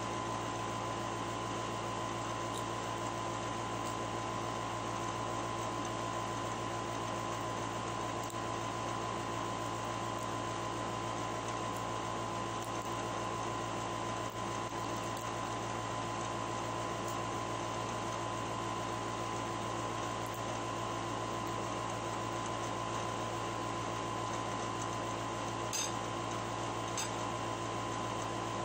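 Steady hum and hiss of a running fan-type appliance, with a steady mid-pitched whine. Two faint clicks come near the end.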